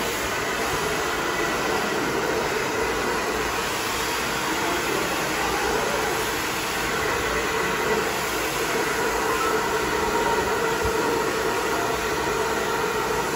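Hot-air round brush running steadily: a constant rush of blown air with a faint motor whine, as it is drawn through wet hair.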